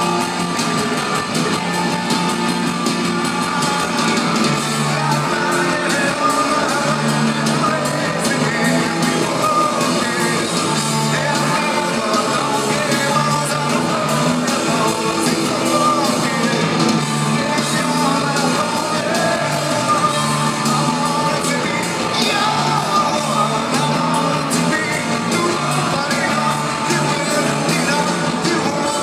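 Rock band playing live in an arena: a sung and shouted lead vocal over a driving electric-guitar riff, bass and drums, all at a steady high level.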